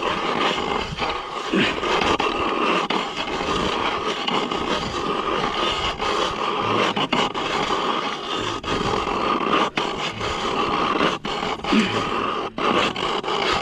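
Hand-cranked ice auger boring through lake ice: a steady grinding scrape of the blades shaving ice as the crank turns, with a few brief breaks.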